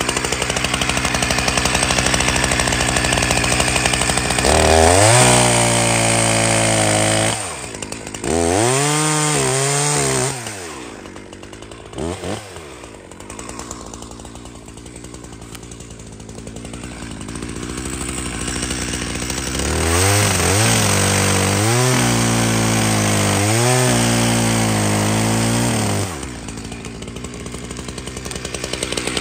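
ZimAni two-stroke chainsaw cutting timber, its engine revving up and falling back in several spells, with quieter slower running in between.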